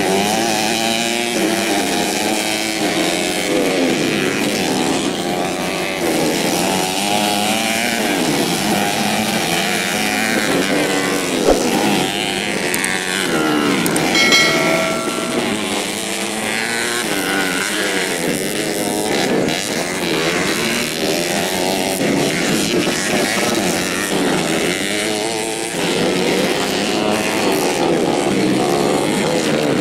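Several modified four-stroke 125cc underbone motorcycles racing on a dirt track, their engines revving up and down over one another. A brief steady tone rings out about halfway through.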